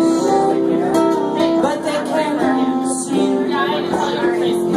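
Live acoustic guitar music, plucked and strummed, with a woman singing over it.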